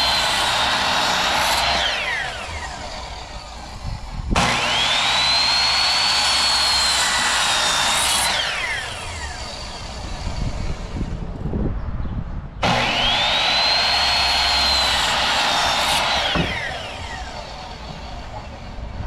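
An electric power saw cuts wood three times: each run starts suddenly, its motor whine climbs to a high pitch and holds through the cut, then winds down. The first run is already going and winds down about two seconds in; the others start about four and twelve seconds in.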